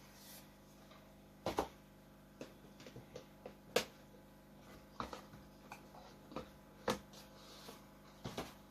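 Irregular light clicks and knocks, about seven in all, from small boxed products and cardboard being handled and set down.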